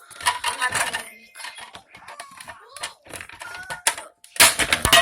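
Small hard pieces clattering and rattling as they are handled and put back in, in two bursts, one near the start and a louder one near the end, with scattered clicks between.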